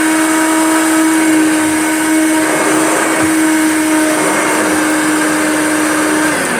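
Hoover Junior upright vacuum cleaner running with a loud, steady motor hum on a thick faux fur rug, its pile height set wrong for the deep pile. Near the end it is switched off and the hum drops in pitch as it winds down.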